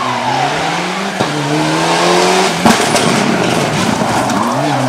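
Mitsubishi Lancer Evolution rally car's turbocharged four-cylinder engine at full stage pace through a corner. The pitch drops as it comes in, then climbs in steps through the gear changes, with a sharp crack about two and a half seconds in and a constant hiss of tyre and gravel noise.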